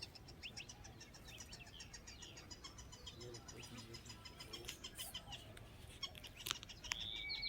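Birds chirping and calling around an open field: a fast run of high, even chirps and scattered short calls, with a few sharp clicks about five to six and a half seconds in and a trill starting near the end.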